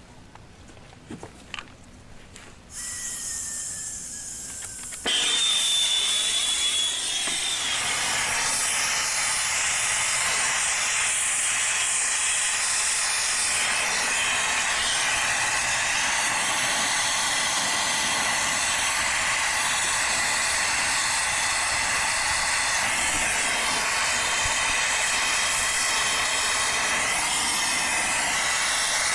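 Handheld gas torch hissing, heating copper pipe for soldering. The hiss starts a little under three seconds in, jumps louder about five seconds in with a brief thin whistle, then burns on steadily.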